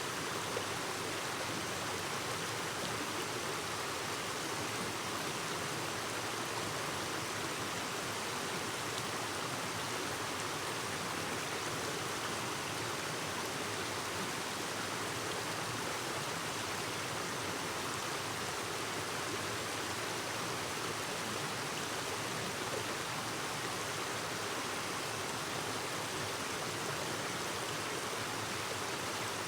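Clear stream babbling over rocks, a steady rush of flowing water.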